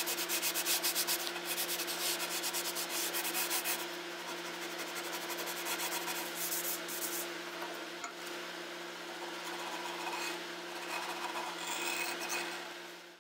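Hand sanding of a stripped walnut drawer front's edge moulding, the abrasive rubbed quickly back and forth along the grain in rapid scratchy strokes that grow softer after about four seconds. A steady low hum runs underneath.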